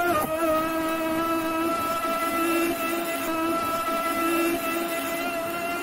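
Traxxas M41 Widebody catamaran RC boat's brushless motor running at a steady high-pitched whine as the boat drives over snow, heard from a camera mounted on the hull. The pitch rises slightly near the end.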